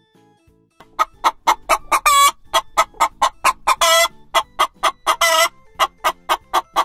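Hen clucking in a quick run of short clucks, about three or four a second, broken three times by a longer drawn-out cackle.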